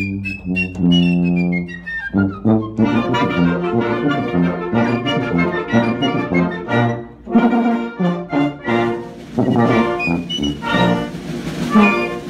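Concert band playing a tuba and piccolo feature. A tuba sounds low notes under a piccolo's line stepping downward, then about two and a half seconds in the full band comes in with brass and woodwinds.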